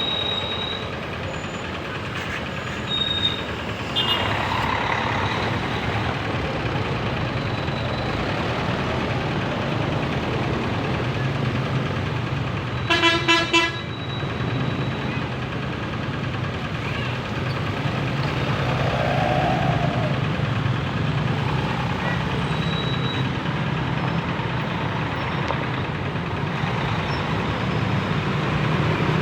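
Heavy road traffic with large bus engines running steadily. About halfway through, a bus horn sounds four quick toots on one pitch, the loudest sound here.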